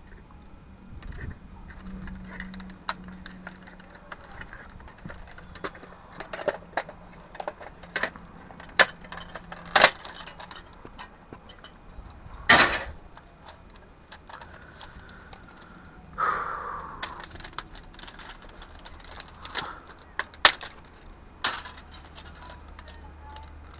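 Small metal and plastic parts of a CD/DVD drive being handled and pulled apart: irregular clicks, clinks and knocks, a few of them sharp and loud, and a brief scrape near the middle.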